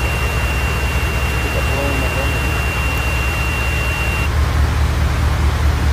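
Steady hiss of heavy rain and running water over the low, even hum of an idling vehicle engine. A thin high whine stops about four seconds in.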